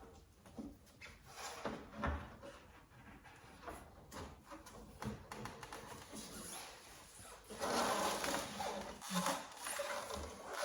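Scattered knocks, clicks and rubbing of a car's plastic rear light cluster being pushed into place and fastened by hand, with a louder scraping stretch about eight seconds in.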